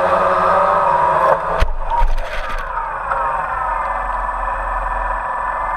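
Small drone's propellers whining, the pitch wavering up and down; a sharp knock about a second and a half in and a brief clatter just after, then the whine carries on.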